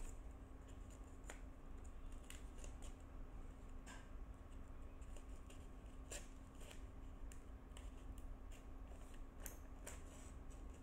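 Slim stainless-steel nail nipper snipping a sheet of paper: about a dozen small, crisp snips at irregular intervals, faint.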